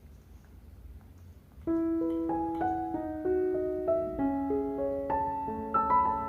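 Background piano music, a gentle melody of single notes that starts suddenly about two seconds in, after faint low rumble.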